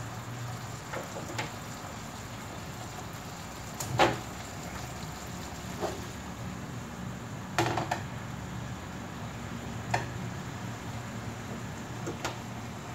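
A frying pan knocking on a gas stove's metal grate as it is shifted to another burner: a few scattered knocks, the loudest about four seconds in, over a low steady hum.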